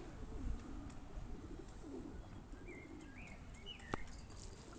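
Pigeons cooing, a run of low repeated coos, with a few faint high chirps from a small bird in the middle and a sharp click near the end.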